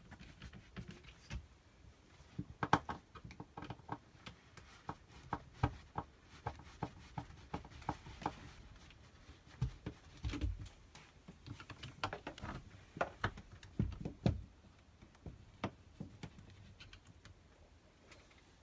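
Hand screwdriver undoing small screws from a caravan window blind's plastic corner fittings: irregular light clicks, taps and scrapes of the tool and plastic parts, with a few louder knocks.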